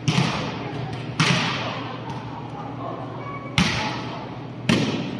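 A volleyball being struck four times, sharp smacks one to two and a half seconds apart, each ringing on in a large echoing hall.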